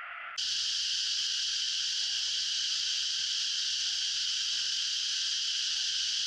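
Steady shrill insect chorus, a continuous even buzz with no pauses, cutting in abruptly about half a second in.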